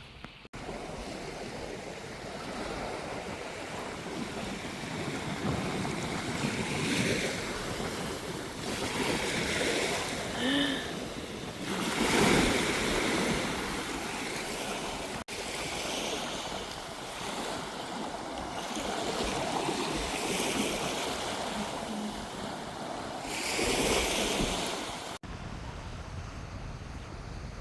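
Sea waves and wind, with wind buffeting the microphone, swelling and easing in waves. The sound breaks off sharply twice.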